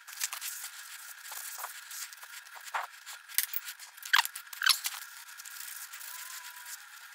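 Shop towel rubbing and scraping old grease out of the bearing in a Monarch lathe's clutch pulley: a run of light scrapes and clicks, with two brief squeaky rubs a little past halfway.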